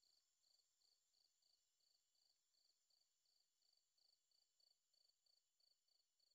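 Near silence, with only a very faint high chirping repeating about three times a second.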